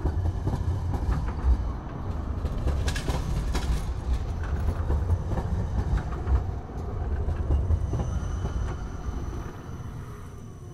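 Articulated low-floor tram passing slowly with a steady rumble. About three to four seconds in its wheels clatter in a short run of clicks over the track crossing, and the sound fades near the end as the tram moves away.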